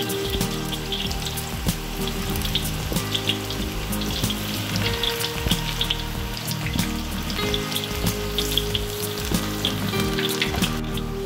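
Battered mushroom stems deep-frying in a wok of hot oil: a steady sizzle with many small crackling pops.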